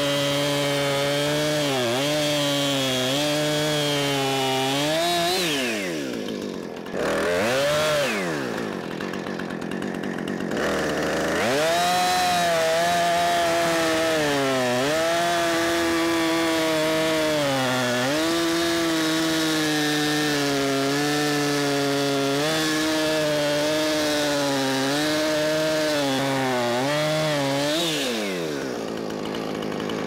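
Husqvarna Rancher 455 two-stroke chainsaw cutting through a log at full throttle, its pitch sagging and recovering as the chain bites. About six seconds in it drops to idle, is blipped once, idles, then revs back up at about twelve seconds and cuts again, falling back to idle near the end.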